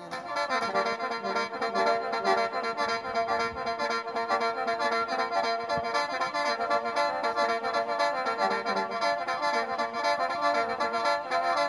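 Khaen, the Isan bamboo free-reed mouth organ, playing a mor lam introduction: a steady drone under a busy, chordal melody.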